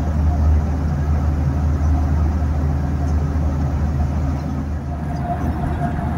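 Steady low drone of a Boeing 737-900 airliner in cruise, heard inside the cabin: engine and airflow noise.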